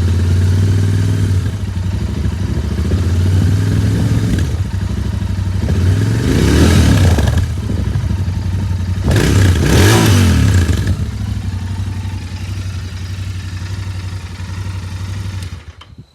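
Royal Enfield Interceptor 650's 648 cc parallel-twin engine on its stock exhaust, idling steadily and revved twice, about six and nine seconds in, each time climbing and falling back to idle.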